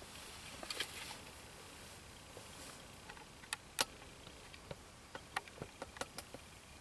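A scatter of small, sharp clicks and light rustles close to the microphone over a faint steady hiss: handling noise from someone sitting quietly in a hunting blind. The loudest click comes about four seconds in, and a run of smaller ticks follows.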